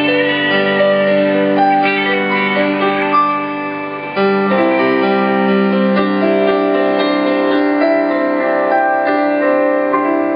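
Live rock band playing, led by held keyboard chords that shift to a new chord about four seconds in.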